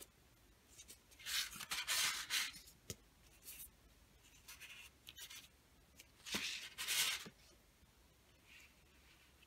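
A photo print and a shrunken plastic sheet rubbing and sliding against each other and a tabletop as they are handled, in several short scraping bursts, the loudest about a second in and again around six seconds in.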